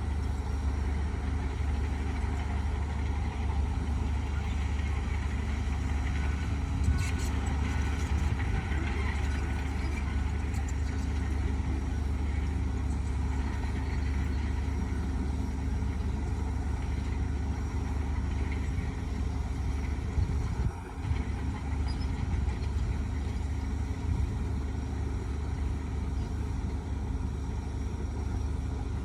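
Heavy machine engine running steadily with a deep rumble and a constant hum, briefly dipping about 21 seconds in.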